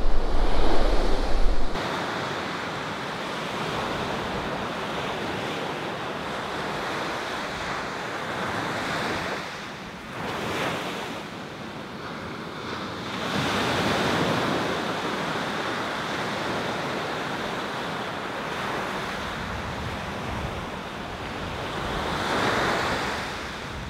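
Ocean surf breaking and washing up the beach, swelling and easing in slow waves. Wind rumbles low on the microphone for the first couple of seconds.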